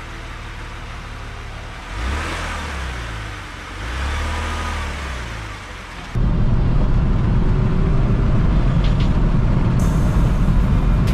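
Ford Edge Sport's 2.7-litre twin-turbo V6 running with two brief revs, each rising and falling in pitch. About six seconds in it cuts to the louder, steady rumble of the engine and tyres heard inside the cabin while driving on the road.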